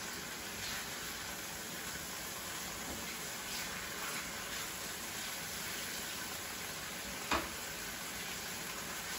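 Flounder fillets frying in avocado oil in a frying pan, a steady sizzle, with a few light taps of the spatula against the pan and a sharper knock about seven seconds in.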